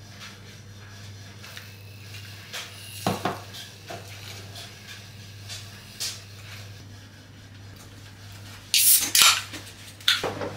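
Light clinks and knocks of glassware and cutlery on a kitchen counter while coffee with milk is being made. Near the end comes a short, louder crackling rush as the lid of a small container is pulled open. A low steady hum runs underneath.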